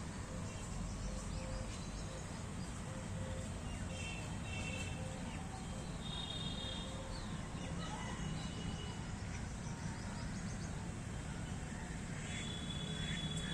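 Birds calling outdoors: short high chirps and trills come now and then over a steady low rumble. A soft low note repeats about twice a second through the first half.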